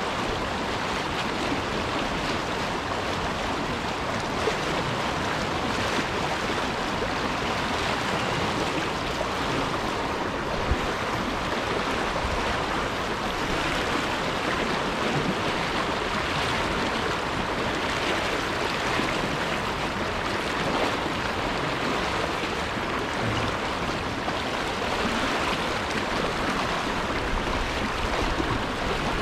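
Fast river current rushing over a shallow rocky riffle, a steady wash of flowing water, with two brief faint ticks early on the way.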